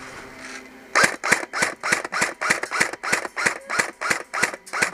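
JG AUG airsoft electric rifle firing a rapid string of single shots, about four a second, beginning about a second in.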